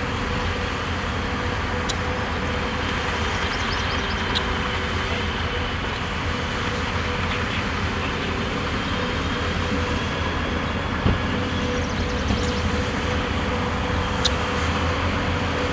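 Heavy diesel earthmoving machinery running steadily, with a steady whine and a few faint metallic clicks. There is a single sharper knock about eleven seconds in.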